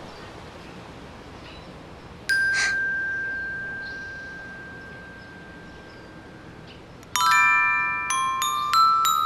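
Bell-like chime tones as a metal pole and then metal fence railings are tapped with a small wand. About two seconds in, one clear ding rings out and slowly fades over several seconds; about seven seconds in, several tones sound together, then further notes follow about every half second, like a glockenspiel.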